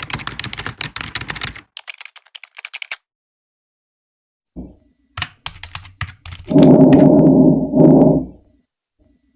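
Rapid clicking like keyboard typing for about three seconds, then after a pause a few more clicks, followed by a loud, low buzzing tone in two bursts.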